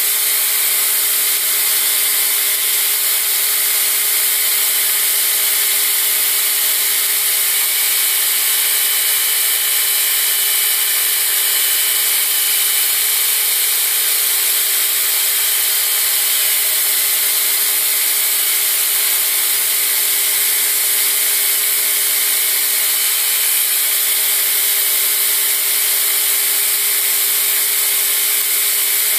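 Belt grinder running steadily while a steel push-dagger blade, clamped in a bevel jig, is ground against the belt: a continuous machine whine under a loud hiss of steel on abrasive.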